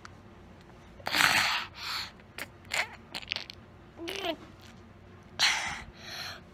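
A young girl making breathy huffs and mouth noises right against the microphone, with one short voiced sound. There are two loud huffs, about a second in and near the end, with smaller puffs and clicks between them.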